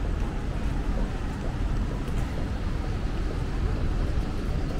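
City street ambience in the rain: a steady low rumble of traffic under an even wet hiss, with no single event standing out.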